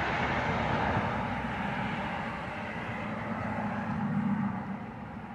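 Strong wind blowing in a steady rush that eases off a little near the end.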